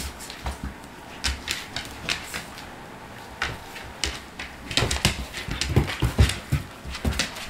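A husky and a Czechoslovakian wolfdog play-fighting on a wooden floor: claws clicking and scrabbling, bodies bumping, and short noises from the dogs themselves. It gets busier about halfway through.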